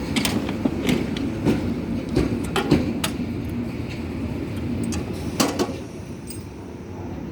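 Railway carriage clanking and creaking: scattered sharp knocks and rattles over a steady low rumble, a little quieter near the end.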